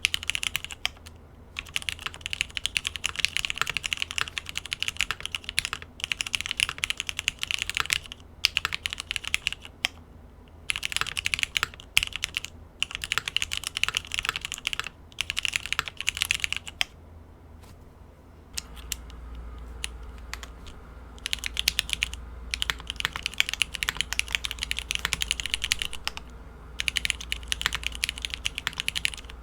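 Typing on a 65% top-mount aluminium-plate custom mechanical keyboard with Cherry MX1A Black linear switches, lubed with Krytox 105/205 and fitted with 62.5 g springs. The keystrokes come in quick runs broken by short pauses, with a longer break about two-thirds through, after which a low steady hum sits under the typing.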